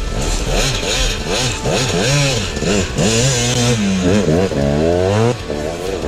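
KTM enduro motorcycle engine under way, its revs repeatedly climbing and falling as the throttle is worked, with a long rising rev near the end that drops off sharply.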